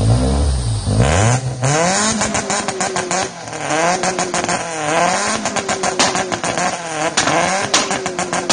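Honda Civic engine, which has a spun bearing, revved up and held on its two-step launch limiter, with a rapid string of sharp pops and cracks from the limiter cutting. Three times the revs dip briefly and climb back onto the limiter.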